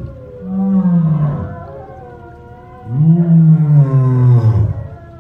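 Adult male lion roaring: two long, deep calls, the second longer and louder, each sliding down in pitch at the end.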